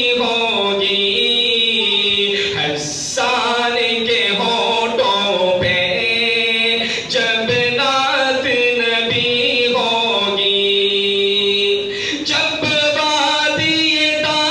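A man singing an Urdu naat unaccompanied, in long held, gliding vocal lines with short pauses for breath.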